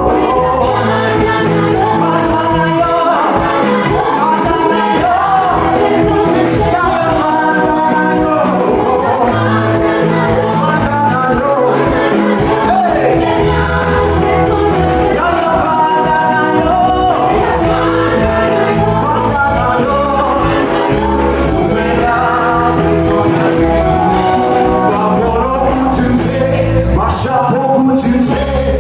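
Gospel worship music: voices singing together over a band with steady bass.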